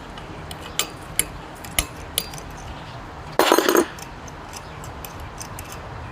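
Scattered small metallic clicks and clinks of tools and engine parts being handled, with one short louder clatter about three and a half seconds in; the engine is not running.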